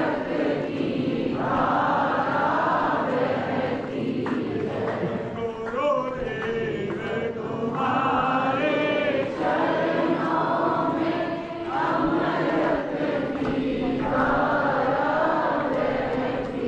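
A crowd of devotees singing a devotional chant together, many voices in repeated sung phrases.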